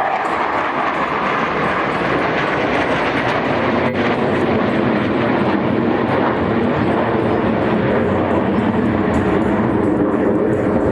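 Jet engine noise from Blue Angels F/A-18 jets, a steady loud rush that grows duller near the end as the aircraft draws away. A brief click about four seconds in.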